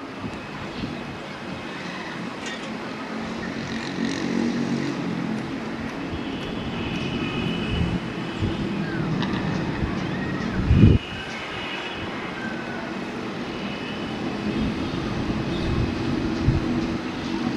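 Distant jet airliner engines at taxi power, a steady rumble with a higher whine that comes and goes. A single thump about eleven seconds in.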